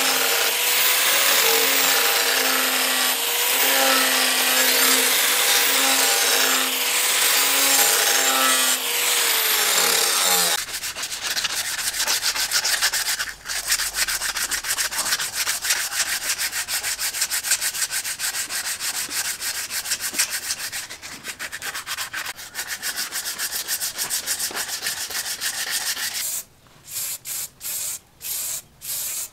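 An angle grinder with a sanding pad grinds a steel knife blade, its motor whining steadily under the scraping. About ten seconds in, it gives way to rapid hand strokes of the blade across a sharpening stone. Near the end come several short bursts from an aerosol spray can.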